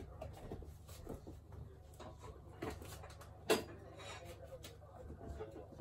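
Faint rubbing and light tapping of a cloth-covered hand pressing a glued PVC wall panel flat against the wall. A single sharper knock sounds about three and a half seconds in.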